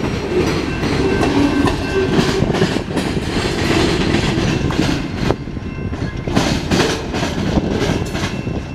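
Freight cars of a mixed freight train rolling slowly past: steel wheels clicking over rail joints in a regular rhythm over a steady rumble.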